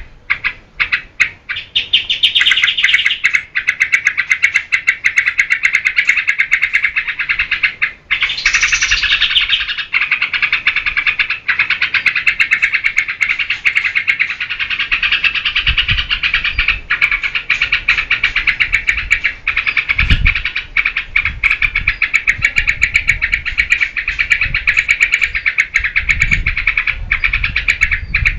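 Yellow-vented bulbul (trucukan) singing a long, fast run of notes without a break, after a few separate short notes at the start.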